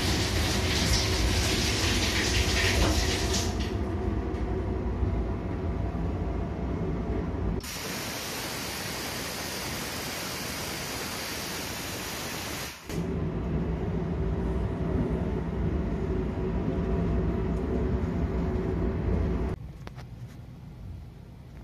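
JR 285 series sleeper train running, heard from inside the car: a steady low rumble with a hum. For about five seconds in the middle it gives way to an even hiss that starts and stops abruptly, and near the end it drops to a quieter hum.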